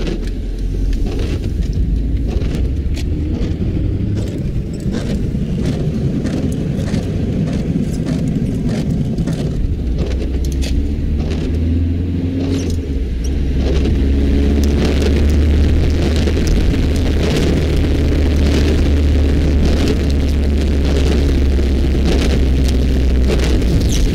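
Car engine and road noise heard from inside the cabin while driving in the rain, a heavy low rumble that grows deeper and stronger about halfway through, with many scattered sharp ticks over it.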